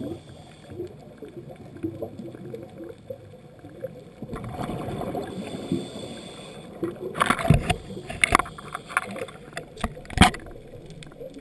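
Scuba diver's breathing heard underwater: exhaled bubbles gurgling from the regulator, swelling a little under halfway through, then a cluster of sharp clicks and pops about two thirds in and one more near the end.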